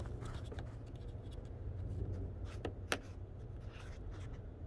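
Red plastic trim-clip removal tool being worked under a plastic retainer clip on a truck's air box, scraping with faint ticks and two sharper clicks close together about three seconds in.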